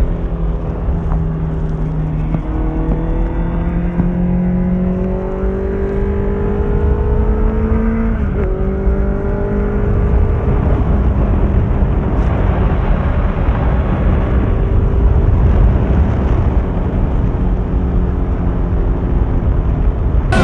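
Honda CBR650F's inline-four engine through an Akrapovic exhaust, pulling steadily with a rising note. About eight seconds in, an upshift drops the pitch, and it climbs again. In the second half the engine tone blends into a broader rushing noise.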